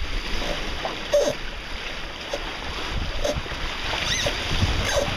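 Wind and choppy water around a small sailboat: waves slapping and splashing against the hull in short bursts about once a second, over a steady low rumble of wind buffeting the microphone.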